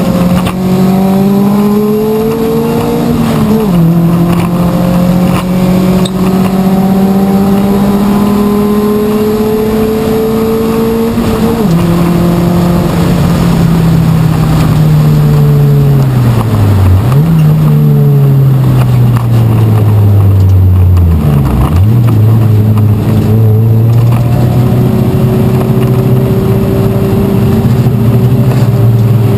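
Race car engine heard loud from inside the stripped, gutted cabin, pulling hard through the gears. The pitch climbs and drops sharply at upshifts about 4 and 12 seconds in, then falls away under braking, with quick dips and rebounds at downshifts around 17 and 21 seconds, before holding a lower, steady pitch.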